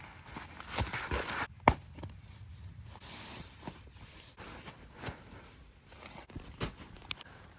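Footsteps and scattered knocks and rustles of camping gear being handled, with one sharp knock about a second and a half in.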